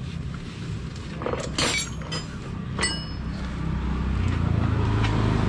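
An engine running steadily at idle, getting louder about four seconds in, with a few sharp clinks twice along the way.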